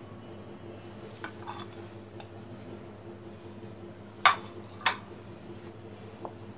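A hand mixing dry flour in a glass bowl, with light clicks and two sharp clinks against the glass about four and five seconds in, over a faint steady hum.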